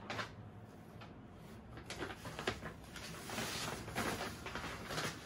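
Paper shopping bag rustling and crinkling as hands rummage inside it, busiest and loudest through the second half, with sharper crackles mixed in.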